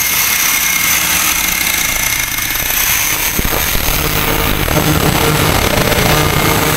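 Handheld angle grinder with a cutting disc running steadily, with a high whine, as it cuts through a metal bracket.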